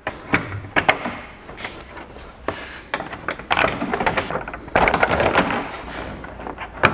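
Plastic push-pin clips being pried up out of a pickup's black plastic grille cover with a pry tool: a series of sharp plastic clicks and snaps, with scraping and rustling of the plastic cover between them. The loudest snap comes near the end.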